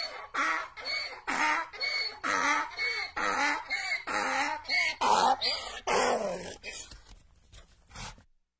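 Donkey braying: a long run of alternating high and low notes, about two a second, that grows louder, then tapers off and stops about a second before the end.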